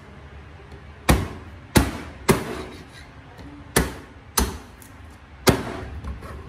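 Knife chopping through pieces of fried chicken onto a chopping board: six hard, sharp chops at uneven intervals.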